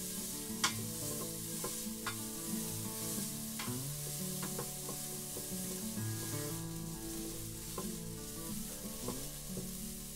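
Chopped onion sizzling in melted butter in the stainless steel inner pot of an Instant Pot on sauté mode, stirred with a wooden spatula that scrapes and clicks against the pot a few times.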